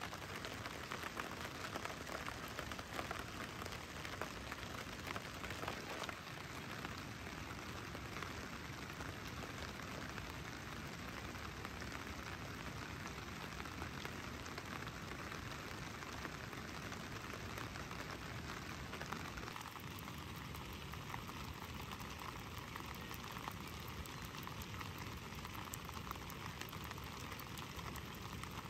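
Steady rain falling on a nylon camping tarp and the wet ground around it, a constant hiss of many small drops that shifts slightly in tone about two-thirds of the way through.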